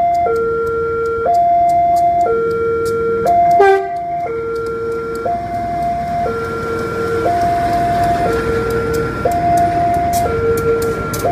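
Railway level-crossing warning alarm sounding throughout, a high tone and a lower tone taking turns about once a second. From about four seconds in, the rumble of a diesel multiple unit's wheels on the rails builds up beneath it as the train passes. A short, loud sound comes just before the rumble starts.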